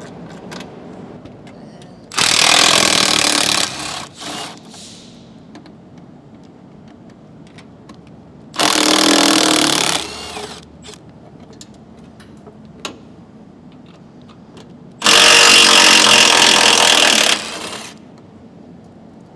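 Cordless Milwaukee Fuel impact wrench (rattle gun) hammering in three bursts of one to two and a half seconds, the last the longest, as it undoes three Loctite-covered M6 bolts that are quite firm to get off.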